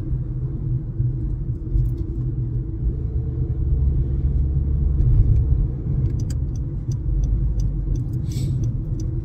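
Steady low rumble of a car on the road, heard from inside the cabin, with a few faint scattered clicks in the last few seconds.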